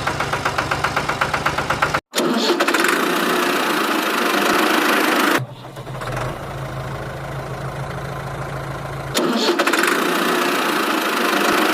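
Tractor engine sound in spliced pieces: a quick even chugging, a sudden cut about two seconds in, then steady running that changes abruptly twice more, near the middle and about three-quarters of the way through.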